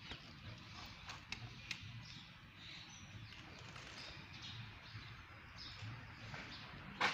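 Faint outdoor ambience with scattered short bird chirps and a few light clicks, then a sharper knock near the end.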